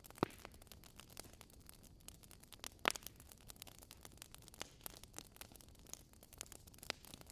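Wood fire crackling in a fireplace: faint, irregular crackles with two louder pops, one just after the start and one about three seconds in.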